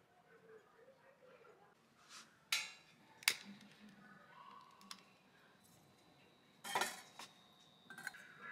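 Sparse metal clicks and clinks from a portable stainless-steel charcoal grill being set up and lit. There are two sharp clicks a little under a second apart about two and a half seconds in, and a louder clank near seven seconds in as the perforated metal charcoal holder is set onto the burner.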